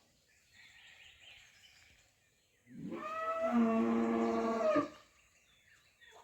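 Faint bird chirping, then a loud, drawn-out animal call of about two seconds, held at one pitch.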